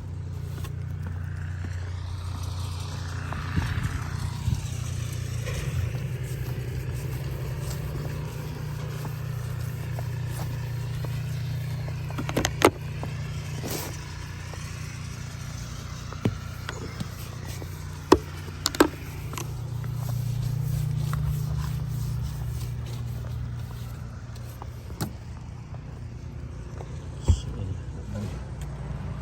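Car engine idling steadily while it warms up in the cold, with a snow brush sweeping and scraping over the car and a few sharp knocks.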